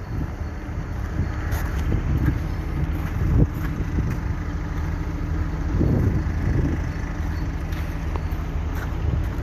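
BMW car engine idling steadily while it warms up in the cold: a low, even hum with no change in speed.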